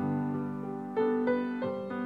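Slow, gentle solo piano music: held chords, with new notes struck a few times in the second half.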